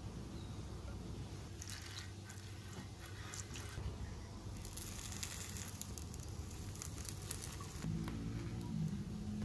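Gas burner running under an enamelled cast-iron grill pan. About five seconds in, slices of cranberry bread are laid onto the oiled ridges and sizzle softly, with light clicks and taps of bread on the pan. A low hum joins near the end.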